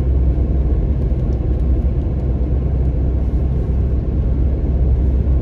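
Steady low rumble of a small car being driven through snow, engine and road noise heard from inside the cabin.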